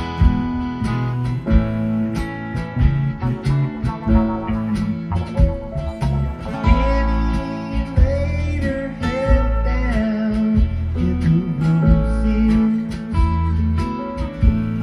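Acoustic guitar music, an instrumental passage of strummed chords and picked lead lines over a steady bass.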